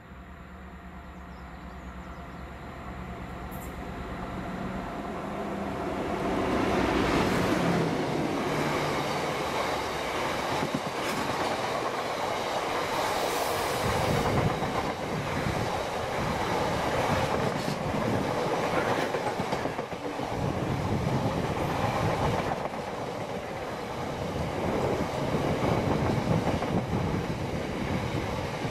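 DB Cargo Class 60 diesel freight locomotive approaching, its engine note growing louder over the first several seconds, then passing at speed. It is followed by a long rake of tank wagons whose wheels clatter over the rails.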